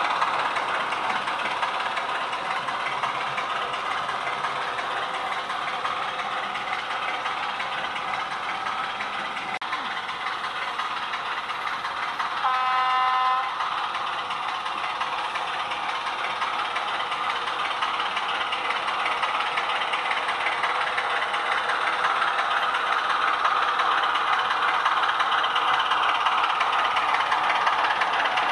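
Roco H0 model train of a ČSD T752 diesel locomotive and freight wagons running steadily on the layout's track, growing louder near the end. About halfway through, the locomotive's sound decoder sounds one horn blast lasting about a second.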